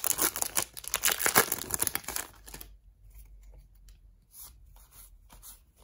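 Foil wrapper of a Pokémon trading card booster pack torn open and crinkled for about two and a half seconds, then much quieter soft slides and taps as the cards are pulled out and flipped through.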